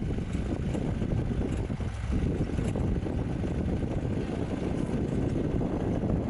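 Safari vehicle driving: steady engine and road rumble, with wind buffeting the microphone.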